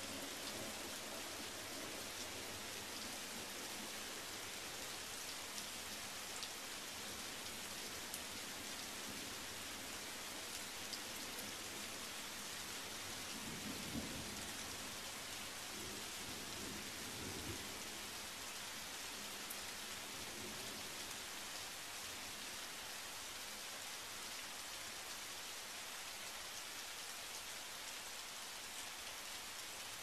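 Steady rain falling on pavement and shrubs, with a few scattered drips. A low rumble of thunder swells about halfway through and fades a few seconds later.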